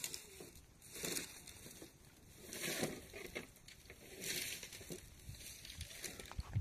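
Footsteps crunching on loose stones and gravel, a slow walking pace of noisy crunches about every second to a second and a half.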